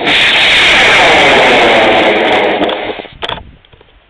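Hell Cat II model rocket's solid motor firing at liftoff: a loud rushing roar for about three seconds that fades away as the rocket climbs off the pad.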